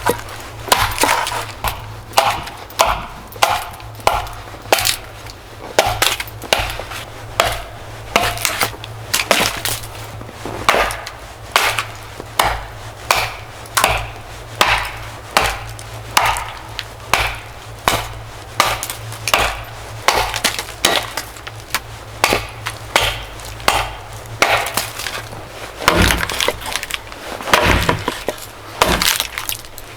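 Firewood being cut by hand: a steady, even run of sharp wooden strokes, about three every two seconds.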